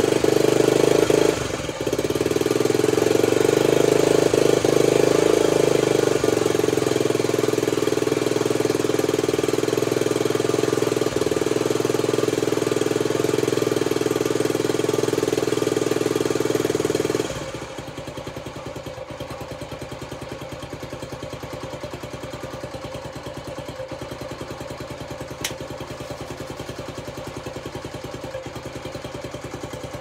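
Honda CT90's single-cylinder four-stroke engine running fast and steady, dipping briefly near the start, then dropping suddenly about 17 seconds in to a quieter, even idle with a regular putt. The idle is smooth on the freshly restored, rewired bike.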